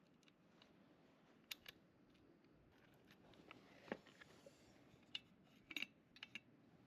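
Near silence broken by scattered small, sharp clicks and taps, about a dozen in all, with a quick cluster of the loudest ones near the end.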